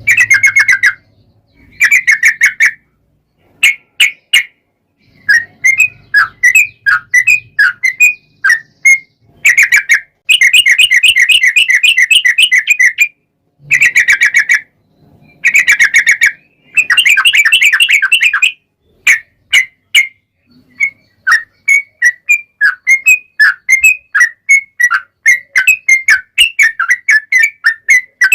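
Yellow-vented bulbul singing in long rolling trills: loud bursts of fast warbled notes, some held for two or three seconds, broken by short pauses. From about two-thirds of the way through, the song turns into quick runs of short chirps.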